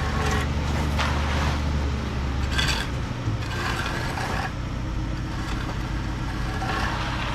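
Concrete line pump's engine running steadily while tools scrape repeatedly through wet concrete.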